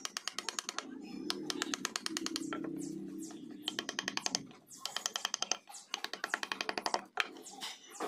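Wooden mallet tapping a carving chisel in quick runs of light strikes, about ten a second, as the chisel cuts feather lines into teak. A low hum sits underneath.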